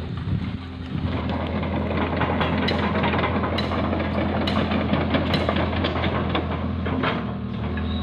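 Hydraulic crawler excavator's diesel engine running steadily while it works its boom and bucket. Short sharp crackles come about once a second over the hum.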